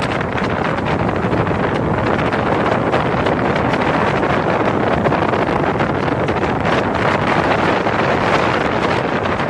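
A speedboat's engine running steadily at cruising speed, heard from on board under a heavy, unbroken rush of wind on the microphone.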